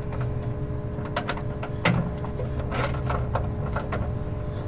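A few short, light clicks and taps of hand tools and bolts being handled in a car's engine bay during fan-shroud removal, over a steady low mechanical hum.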